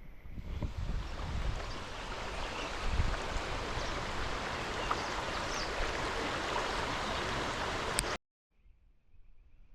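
Steady, even hiss of rushing water that cuts off abruptly about eight seconds in. After the cut, a much quieter background with a faint, steady high whine.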